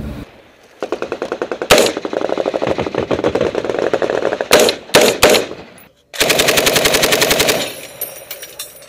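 Automatic machine-gun fire in long, rapid bursts, with a few louder separate shots among them. A brief pause comes about six seconds in, then a final dense burst that stops near the end and leaves a fading echo.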